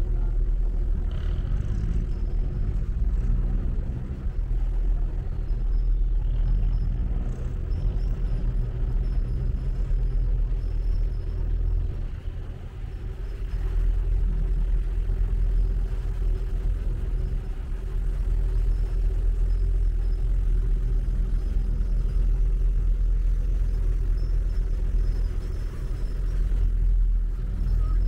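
A river passenger boat's engine running steadily: a deep, continuous rumble with a steady hum over it.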